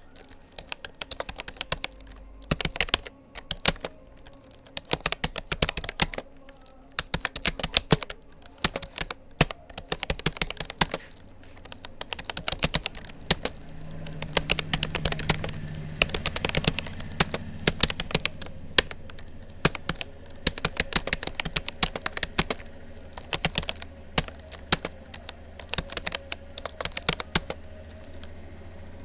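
Typing on a Rapoo computer keyboard: quick runs of key clicks with short pauses between words and phrases. A low hum swells in the middle and lingers faintly.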